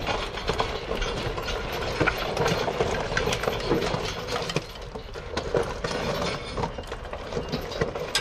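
Steel gantry hoist being rolled over gravel on its wheels: continuous crunching and rattling with many small clanks as the hanging chain hoist swings.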